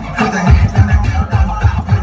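Hip hop dance-routine music with a heavy bass beat, about four bass hits a second.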